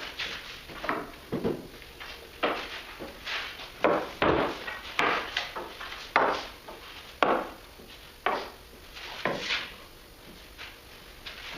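Wooden boards and stickers being set down on a lumber stack: irregular wood-on-wood knocks and clatter with short scrapes, about one every half second to second and a half.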